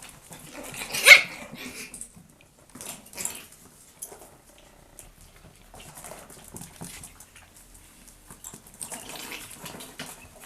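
Chihuahua puppy giving a sharp, high-pitched yap about a second in, then a smaller one around three seconds, with faint scuffling and clicks in between.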